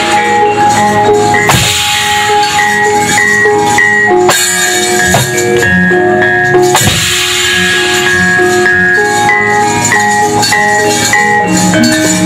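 Javanese gamelan ensemble playing wayang kulit accompaniment: held, ringing metallophone notes and drums, with a few sharp clacks cutting through.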